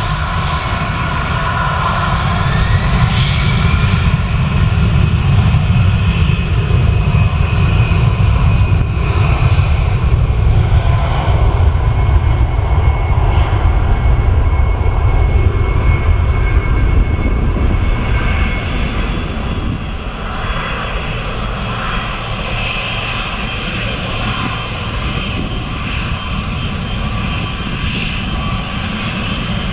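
Boeing 777-300ER's two GE90-115B turbofans running at low thrust as the airliner taxis onto the runway: a deep rumble under steady high whine tones. A whine rises briefly near the start, and the sound eases a little about two-thirds of the way through.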